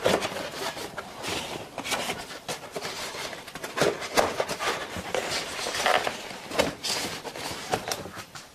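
Handling noise from plastic edge pieces being pressed and fitted onto an expanded-polystyrene beehive top: an irregular run of small clicks, knocks and rubbing scrapes, with a couple of stronger knocks near the start and about four seconds in.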